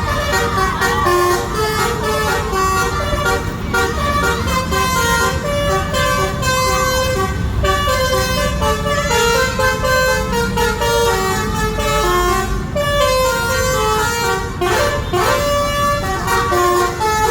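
Bus 'telolet' horn, a multi-tone musical horn, sounding tune after tune of stepping notes over the steady rumble of the bus engine and traffic.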